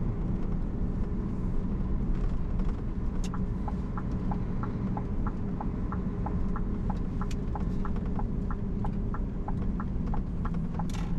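Scania truck cab on the move: a steady diesel engine and road rumble. From about three seconds in, the turn-signal indicator ticks evenly at about three ticks a second, alternating between a higher and a lower click.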